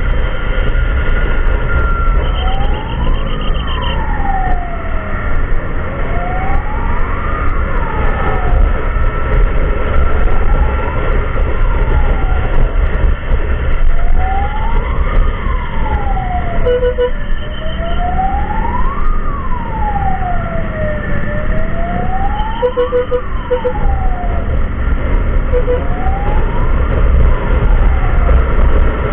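Emergency siren wailing, sweeping slowly up and down in pitch with a new cycle about every four seconds, over a heavy low rumble. Short beeping tones cut in a few times, around halfway through and again later.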